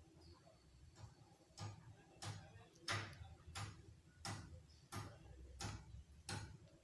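Sharp clicks of hand-tool work on a power cable, about eight of them at an even pace of roughly one every two-thirds of a second, starting a second and a half in.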